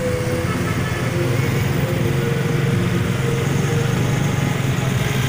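Motorcycle engines running steadily at cruising pace, a continuous low drone with road noise.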